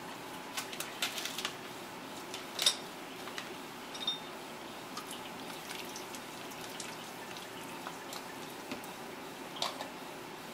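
Wet glass staining jars clinking and knocking as they are handled and set down, with a few drips of water. It comes as a handful of sharp clicks, the loudest about two and a half seconds in, over a steady low background hum.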